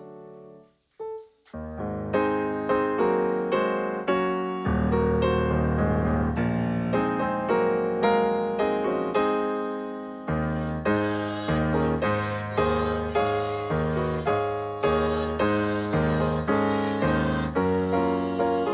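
Piano playing a steady run of struck, decaying chords at about two a second, starting after a brief pause about a second in; deeper bass notes join from about five seconds.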